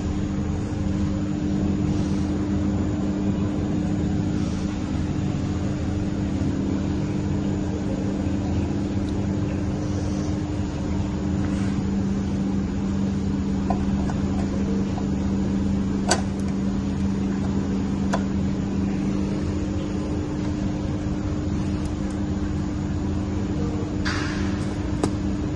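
Sugarcane juice vending machine running with a steady, even mechanical hum. A couple of sharp clicks come around the middle, and a short rustle comes near the end.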